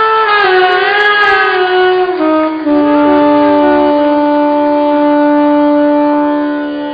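Saxophones playing a slow melodic phrase with sliding pitch bends, settling about two and a half seconds in on a long held note that fades out near the end.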